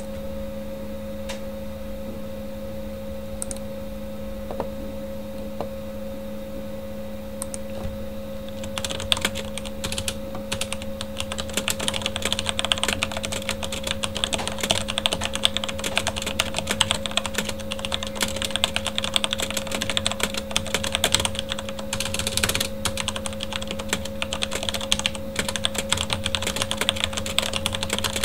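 Typing on a Corsair K70 mechanical keyboard with Cherry MX Red linear switches: a few isolated keystrokes at first, then, about nine seconds in, fast continuous typing. A computer fan hums steadily underneath.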